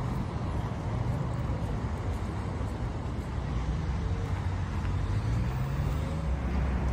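Steady low rumble of road traffic, with one vehicle's engine audibly rising in pitch about five seconds in.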